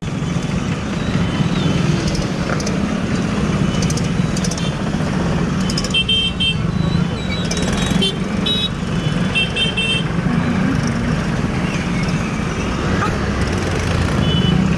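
Dense road traffic at close range: a steady low drone of motorbike and tractor engines running, with several short, high horn beeps between about six and ten seconds in and once more near the end.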